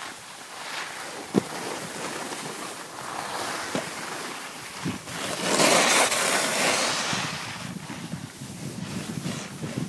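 Snowboards sliding and scraping over packed snow, with wind rushing over the microphone. A single sharp knock comes about a second and a half in, and a louder rush of scraping snow swells up a little past halfway through.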